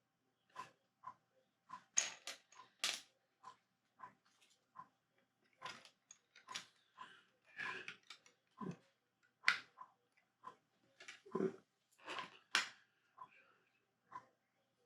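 Small plastic Lego pieces being handled and pressed together: a run of irregular light clicks and taps, two or three a second.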